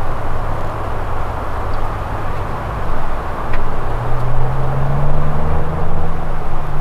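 A motor vehicle running nearby: a steady rush with a low engine hum that grows louder about four seconds in as it comes closer.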